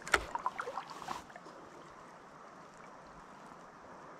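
Faint steady rush of flowing river water. A short cluster of knocks and clatter comes in the first second or so.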